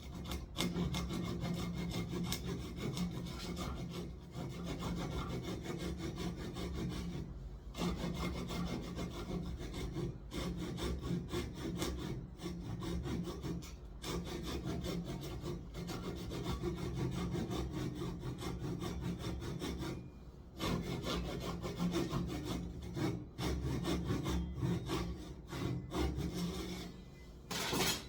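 Handsaw cutting through wood in quick back-and-forth strokes, stopping briefly three times.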